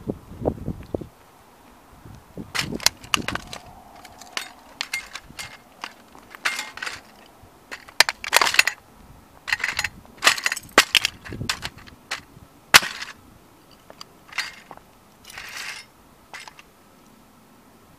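A 1:18 scale model Ferrari cracking and crunching under sneaker soles as it is stomped and trampled. The sharp cracks come in an irregular run, starting a couple of seconds in, with a few longer crunches between them.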